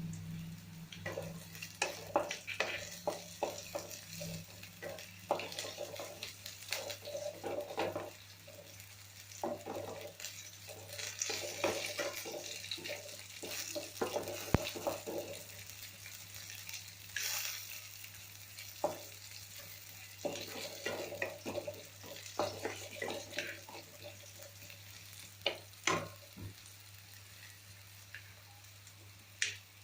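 A spatula stirring and scraping in a pan of food frying in oil, with irregular clinks and scrapes over a light sizzle.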